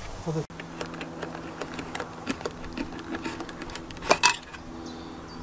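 Light metallic clinks and taps, with two louder clinks about four seconds in, over a steady low hum that starts about half a second in.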